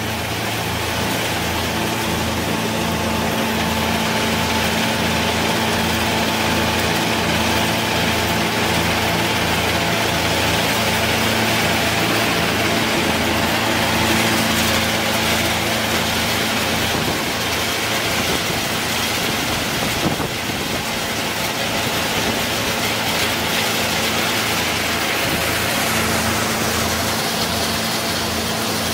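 Electric peanut shelling machine running steadily: a constant motor hum with a dense, busy rattling noise over it.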